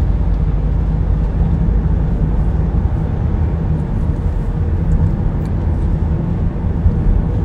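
Steady low rumble of engine and road noise heard inside the cabin of a car on the move.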